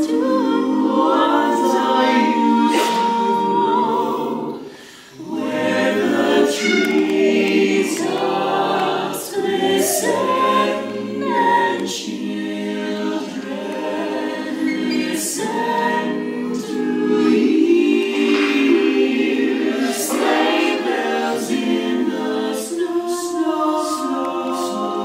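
Mixed men's and women's a cappella choir singing a Christmas song in harmony, with a brief breath pause about five seconds in.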